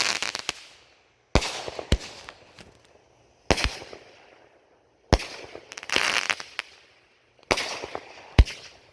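Aerial fireworks going off one after another: a sharp bang every second or two, six in all, each followed by a fading fizz and crackle.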